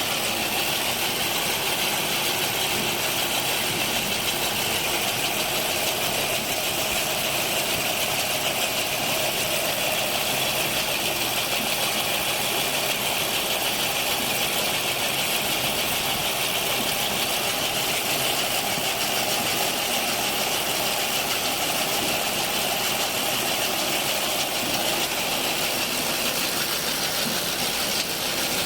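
Lavender harvesting machine running steadily: a continuous, even engine and machinery noise with no breaks.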